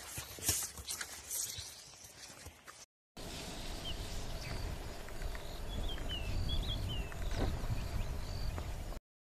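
Horse hooves clopping on dirt, with several sharp knocks. After a brief break, a steady outdoor background with a low rumble and a few short bird chirps, which cuts off abruptly near the end.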